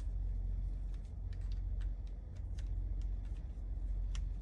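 Light clicks and taps of plastic and metal RC truck suspension parts being handled as the axle is slid into the front hub, with a sharper click about four seconds in, over a steady low hum.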